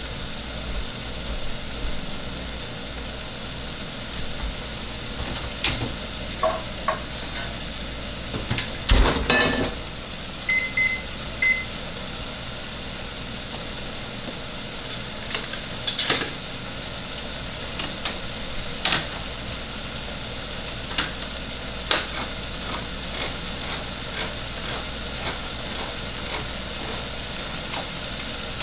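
Chicken pot pie filling sizzling steadily in a pot on a gas stove, with scattered knocks and clatters of pans and utensils; the loudest clatter comes about nine seconds in. About eleven seconds in, three short beeps come from the oven's touch controls as it is set.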